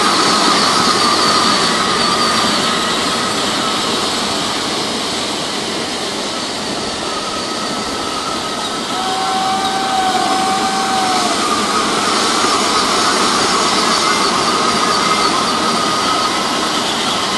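Modified Power Wheels ride-on cars, run on 24 volts or more, racing: their electric motors and gearboxes whine at a few steady pitches over a steady hiss.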